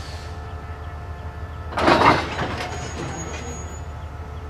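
Diesel locomotive idling with a steady low hum. About two seconds in, one loud metallic clank as the locomotive's coupler meets the passenger coach, ringing briefly as it fades.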